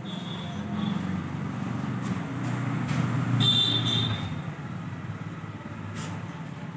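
A motor vehicle's engine running, growing louder toward the middle and then easing off.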